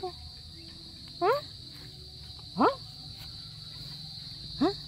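Three short rising animal calls, about a second and a half apart, over a steady high drone of insects.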